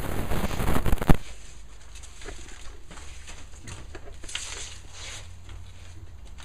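Foil radiant-barrier bubble-wrap insulation being handled, rustling and crinkling loudly for about a second and ending in a sharp snap. After that come only faint, scattered crackles.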